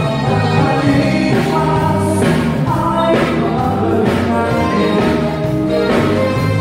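A live band playing a song with drums and singing, with an even drum beat about once a second.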